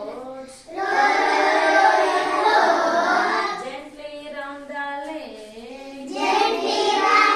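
A class of children singing a nursery rhyme together, with a single voice singing a line on its own in the middle.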